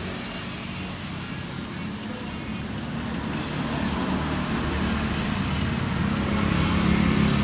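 A motor vehicle's engine running close by on the street, its hum growing steadily louder, over general traffic noise.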